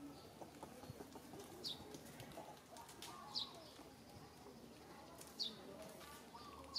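A bird repeating a short, high, falling call about every two seconds, faint, over soft outdoor background noise.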